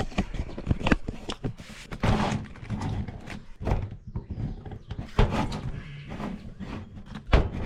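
Irregular knocks, taps and rustling from handling and fitting a screen door in its doorway, with several sharp thunks.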